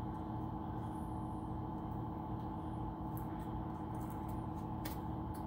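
A steady hum with several fixed tones, with a few faint ticks scattered through it.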